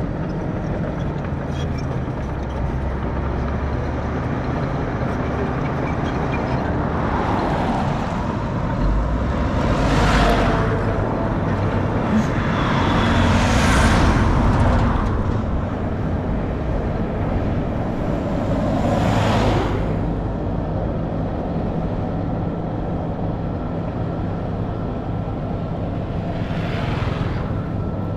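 Heavy diesel construction machinery running steadily at a soil-grading site, with a low engine drone throughout and four louder noisy swells as the machines work.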